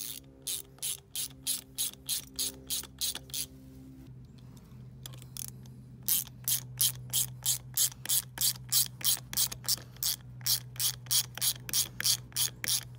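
Hand ratchet with a socket clicking as it turns a screw into a masonry wall, about four pawl clicks a second. Two runs of clicking, with a pause of about two seconds between them.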